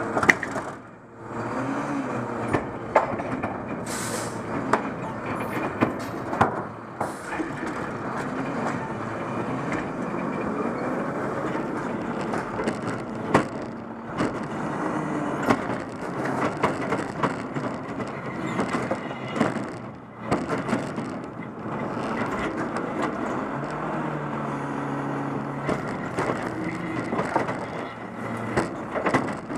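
Automated side-loader garbage truck working its arm: the diesel engine runs under hydraulic load amid repeated clanks and knocks of the arm and cart, with a short hiss about four seconds in. Near the end the tipped cart empties its trash into the hopper.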